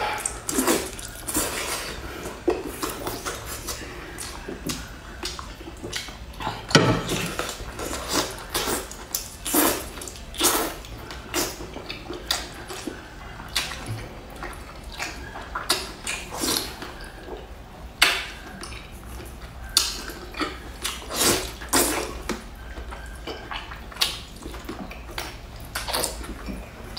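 Close-up wet mouth sounds of eating a whole spicy braised octopus by hand: sucking and slurping on the tentacles and chewing, with irregular wet smacks and clicks.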